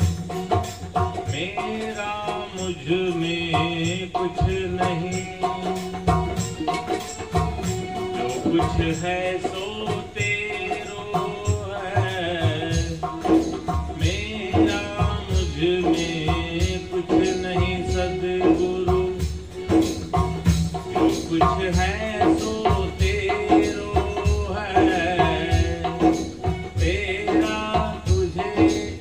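Devotional folk bhajan music: a double-headed hand drum (dholak) is beaten in a steady rhythm, under a melody that glides up and down.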